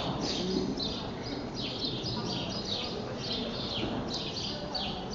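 Small birds chirping busily: a steady run of short, high, falling chirps, about three a second.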